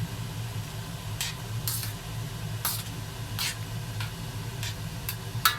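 A spoon stirring soup in a pot, with short scattered scrapes and knocks against the pot, over a steady low hum.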